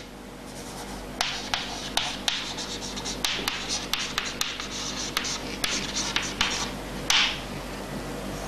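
Chalk writing on a chalkboard: a quick run of scratches and taps as words are written out, easing off about seven seconds in.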